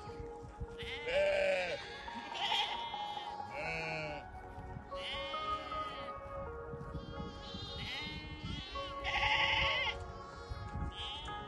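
Sheep and goats bleating in a series of short, quavering calls, over background music with long held notes.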